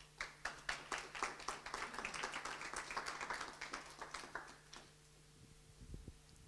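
Small audience applauding, dense clapping for about four to five seconds that thins out and stops. A few low thumps follow near the end.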